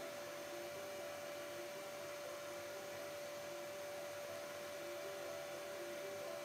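Canister vacuum cleaner running steadily with its floor head pushed over a rug: a constant whine over an even hiss.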